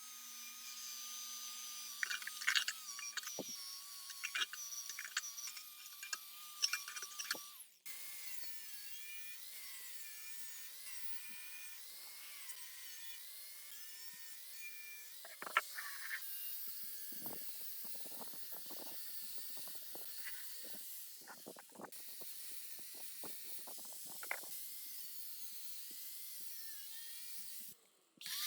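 A small high-speed power tool running with a steady, slightly wavering whine, over scattered clicks and scraping strokes, in several short clips cut one after another.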